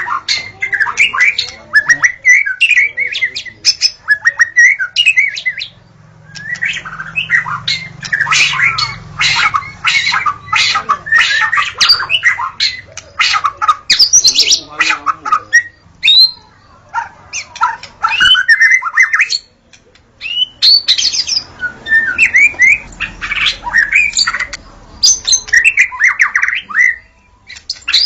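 White-rumped shama (murai batu) singing loudly: phrases of rapid, varied notes and whistled glides, broken by short pauses.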